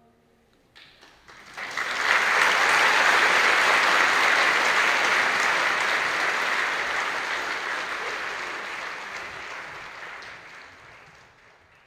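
Audience applauding: the clapping starts about a second in, swells quickly to full strength, then slowly dies away near the end.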